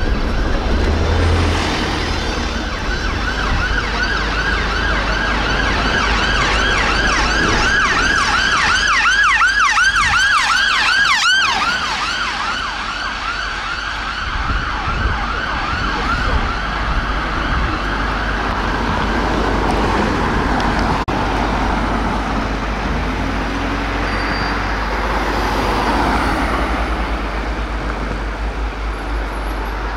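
Siren of a London Ambulance Service VW Tiguan response car sounding a fast yelp, about three sweeps a second, growing louder and then cutting off abruptly about eleven seconds in. Road traffic and engine noise follow.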